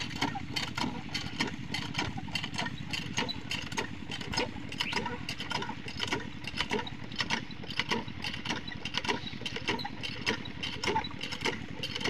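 Small single-cylinder diesel engine driving an irrigation water pump, running steadily with a rapid, regular knocking beat.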